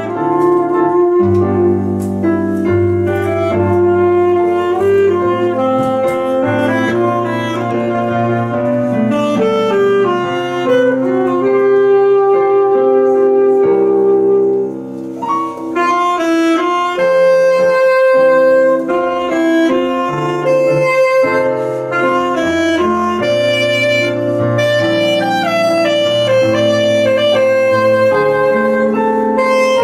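Saxophone playing a slow melody over piano accompaniment from a keyboard, with held low chords underneath; the music thins briefly about halfway through.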